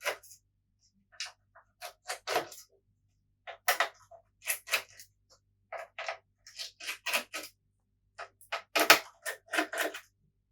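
Irregular small clicks and taps of a screwdriver working Phillips screws out of a PS4 Pro's chassis and the screws being handled, the sharpest tap about nine seconds in.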